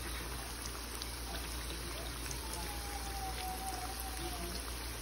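Oil sizzling and bubbling steadily around dough rounds deep-frying in a pan. About midway, a faint thin tone falls slightly and holds for about two seconds.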